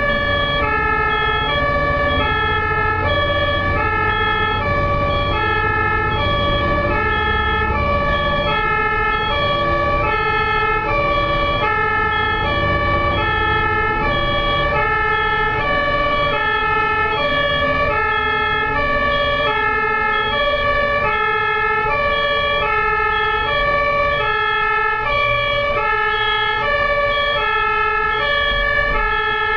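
Ambulance two-tone siren alternating high and low, each tone held about two-thirds of a second, repeating steadily. A low traffic and engine rumble runs underneath, stronger in the first half.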